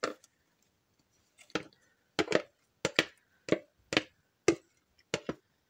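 A wooden spoon tapping and scraping against a mixing bowl as taco sauce is scraped out: about ten short, sharp knocks at an uneven pace.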